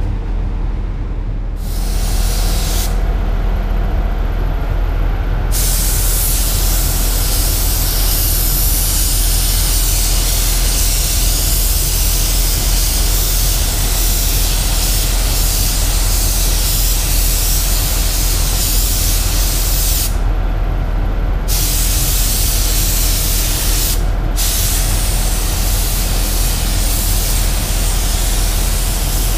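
Gravity-feed air spray gun hissing as primer is sprayed onto a car bonnet, in long passes that stop briefly when the trigger is let off, a few times through, over a steady low hum.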